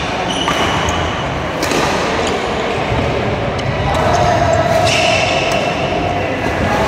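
Badminton rally: a series of sharp racket strikes on the shuttlecock, a few seconds apart, and short high squeaks of court shoes on the wooden floor, over a steady background noise in a large hall.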